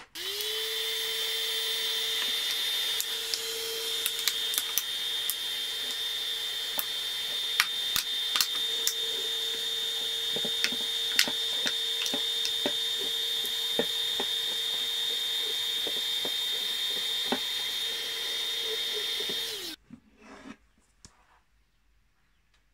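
Electric heat gun running: its fan motor gives a steady whine over a rush of air as it heat-shrinks a plastic bottle onto a steel spring, with scattered sharp clicks over it. Near the end the gun is switched off and its whine falls away.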